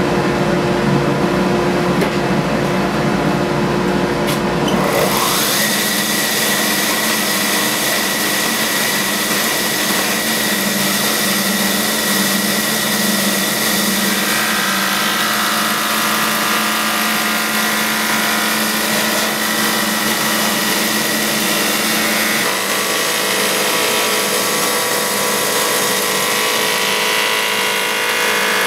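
Benchtop thickness planer running and planing rough-sawn birch boards: a loud, steady machine noise from the motor and cutterhead. About five seconds in, it turns to a brighter, hissier cutting sound with a steady high whine.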